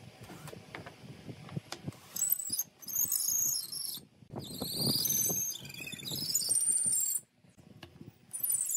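Pine slats and wooden spacers on threaded steel rods, shifted and pivoted by hand. There are light wooden knocks at first, then three stretches of high, wavering squeaks where wood rubs against wood and metal.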